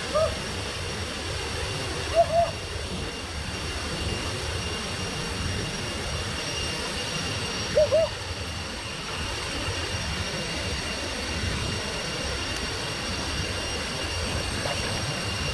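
Steady rushing roar of a waterfall pouring into a pool, with a constant high insect drone over it. A few short, sharp calls stand out, twice in the first few seconds and again about eight seconds in.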